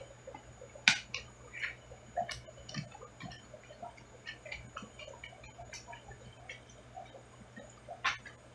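Aquarium sounds: a faint steady hum under scattered, irregular small ticks and clicks, with a sharper click about a second in and another near the end.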